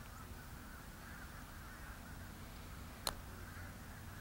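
A single sharp click about three seconds in: a putter striking a golf ball on a putt, over a faint steady outdoor background.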